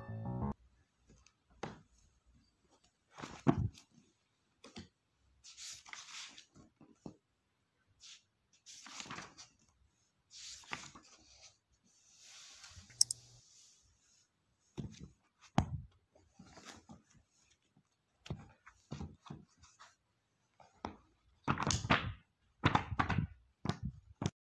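Paper pages of a thick book being turned and flipped, in scattered rustling bursts with soft knocks of hands and pages on the book. A louder quick flurry near the end as the pages are riffled through.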